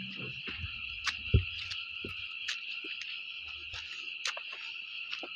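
Crickets chirping in a steady, high-pitched chorus. There are scattered short clicks, and a low thump about a second and a half in is the loudest sound.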